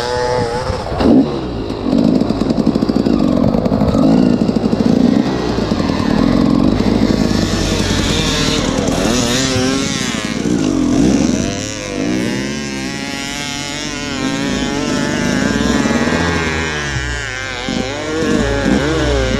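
Enduro motorcycle engine running hard under load, its pitch rising and falling again and again with the throttle as it is ridden.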